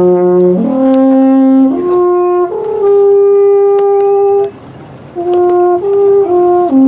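A long, straight natural horn with a flared bell is blown by mouth, playing a slow melody of held notes that step up and down in pitch, with one long note in the middle. A short break for breath comes just before five seconds in, then quicker notes follow.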